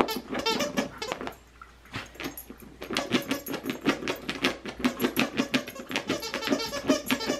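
A big squeaker inside a round dog toy squeaking rapidly and over and over as a miniature schnauzer chews and presses it, with a short lull about a second and a half in.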